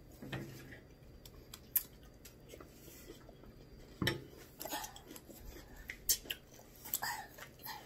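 Crunchy cereal being chewed close to the microphone: quiet mouth sounds with a handful of short, sharp crunches and clicks scattered through.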